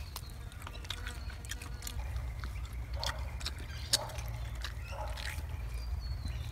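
Close-up eating sounds: spit-roasted rabbit meat being bitten, torn off the carcass and chewed, heard as scattered irregular mouth smacks and clicks over a steady low rumble.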